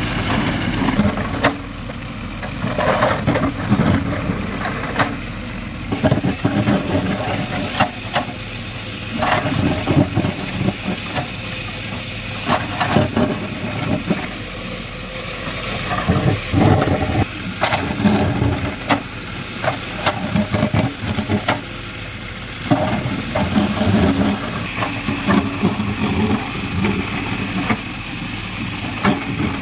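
Diesel engines of backhoe loaders running steadily while a backhoe bucket digs and scrapes through loose soil, with frequent irregular clanks and knocks from the bucket and arm.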